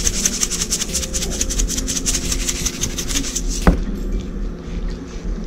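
Background music with a fast, even shaker rhythm over steady low tones, cut off abruptly by a sharp click about three and a half seconds in, leaving a quieter low hum.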